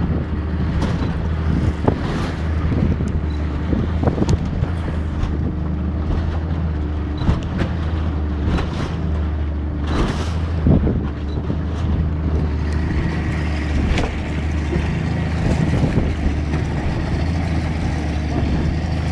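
Yamaha outboard motor running at a steady speed, pushing a small boat through choppy water, with irregular thumps and splashes from the hull meeting the waves.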